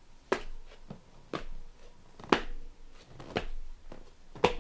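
Slow footsteps, one sharp step about every second, uneven in spacing and loudness.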